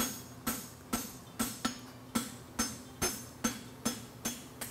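Forging hammer striking a hot steel horseshoe bar on the anvil in a steady rhythm, about two blows a second, each with a short metallic ring: the bevel on a hind draft shoe being hammered at an angle through the heel.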